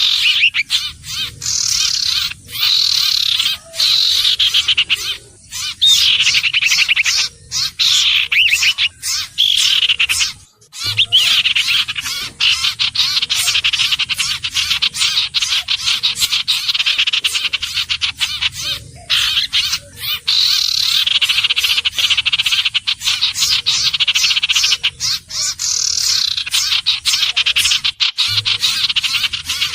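Iora calls: repeated falling whistles and rapid chattering trills, continuous and loud.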